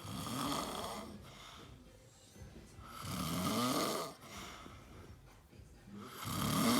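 Snoring: three loud snores about three seconds apart, each lasting about a second, with quieter breathing between them.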